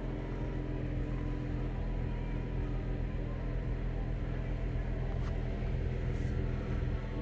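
Chevrolet Camaro engine idling, heard from inside the cabin as a steady low hum, with a couple of light clicks near the end.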